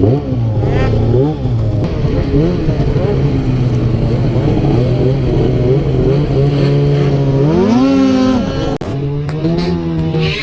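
Two-stroke snowmobile engine running steadily with short revs. About three-quarters of the way through it revs up hard and drops back, then blips again near the end.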